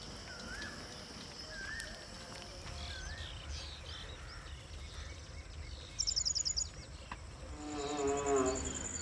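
Outdoor dawn sounds: scattered short bird calls over insects chirring, with a brief loud rapid trill about six seconds in. Near the end, a chanting or singing voice comes in.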